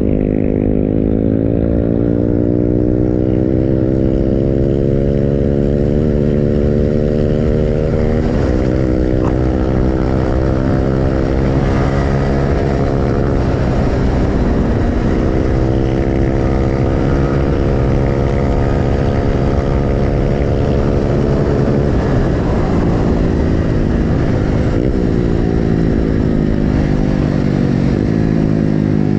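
Motorcycle engine running steadily while riding, its note drifting slowly lower and then higher again with the throttle, with a few brief dips in pitch.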